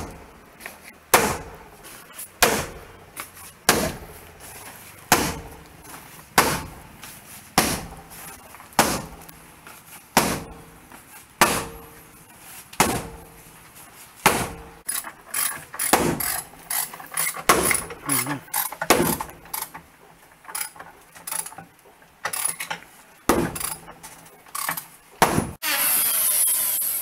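Heavy hammer blows driving a wooden boat frame (rib) into place against the hull planking, a sharp strike about every second and a quarter. The strikes come quicker and lighter from about halfway, and a short burst of hiss comes near the end.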